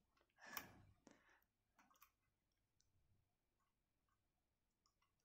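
Near silence with faint handling sounds of electrical wires being worked into a plastic screw terminal block: a brief soft rustle about half a second in, then a few small faint clicks.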